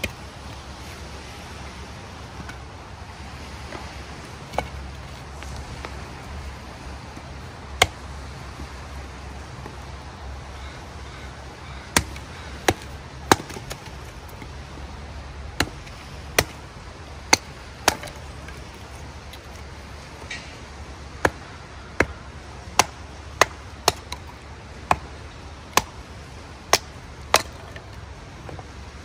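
Firewood being split into kindling by hand: sharp wooden knocks, two spaced well apart at first, then a run of strikes about one a second through the second half.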